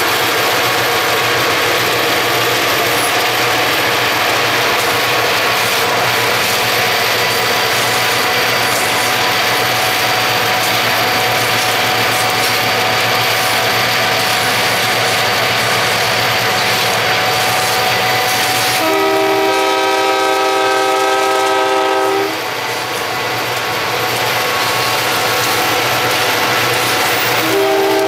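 Diesel freight locomotive's multi-note air horn sounds one blast of about three seconds roughly two-thirds of the way through, and starts a second blast near the end. Underneath runs a steady rushing noise of wind and road from a car moving alongside the train.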